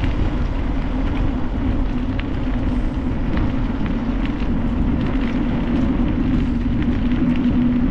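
Wind rushing over the microphone of a mountain bike rider in motion, with tyre and trail rumble, a steady hum and scattered small clicks and rattles.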